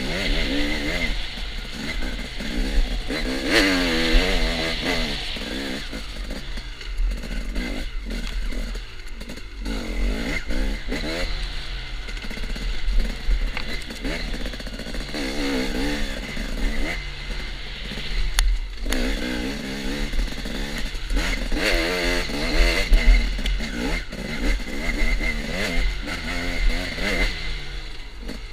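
A KTM enduro dirt bike's engine, heard from the rider's helmet, revving up and down again and again as it is ridden hard along a woods trail, with occasional knocks from the bike over rough ground.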